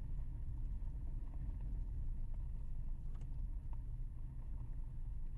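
Low steady rumble of a vehicle driving slowly on a dirt road, with a couple of faint ticks a little past the middle.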